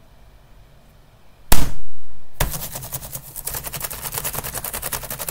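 A computer keyboard slammed once, a loud bang about a second and a half in, then a fast clatter of keys being mashed, about ten keystrokes a second, starting about a second later.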